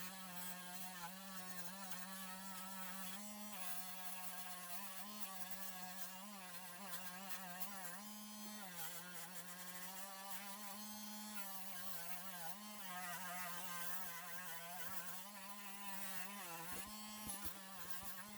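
Small high-speed rotary tool running steadily with a buzzing whine, its pitch wavering slightly as a Scotch-Brite pad on it is worked over a die-cast metal car casting to scrub off toning.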